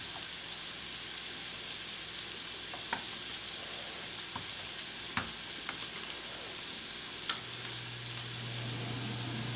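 Chicken thigh pieces sizzling steadily in a hot frying pan, with a few light knocks of a wooden spoon against the pot as boiling orzo is stirred and the bottom scraped.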